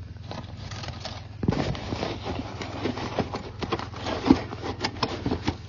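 Hands handling a black nylon drawstring bag among plastic kitchenware: the fabric rustles, with a scatter of small clicks and knocks.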